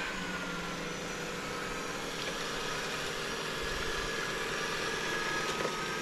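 Xiaomi Mi Robot Vacuum Mop 2 Ultra's suction fan running with a steady whine over a rushing sound. The whine's pitch settles lower about half a second in, as the robot drops from turbo to silent suction.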